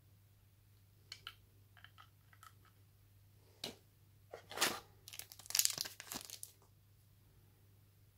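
Packaging being handled: a few light clicks and taps, one sharp click a little before halfway, then about two seconds of loud crinkling and rustling of plastic and cardboard as the battery is lifted from the box's cardboard tray.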